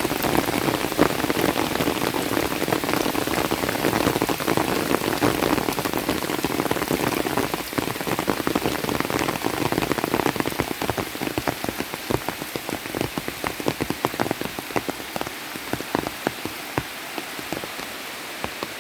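Heavy rain pouring down, with many individual drops striking close by. The downpour eases a little about halfway through, leaving the separate drop hits more prominent.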